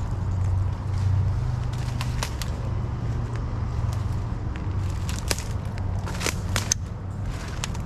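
Scattered crackles and snaps, like dry leaf litter and brush being moved through while a fishing rod is handled, over a steady low rumble. The clicks come thickest a little past the middle.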